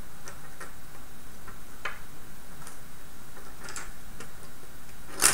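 Small plastic gearbox parts being handled and fitted by hand: scattered light clicks and ticks, with one sharp, louder click near the end.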